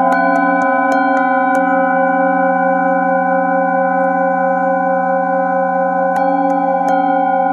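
Several brass singing bowls ringing together in steady overlapping tones. A striker hits bowls about five times in the first second and a half and again near the end, with a sustained ringing hum in between.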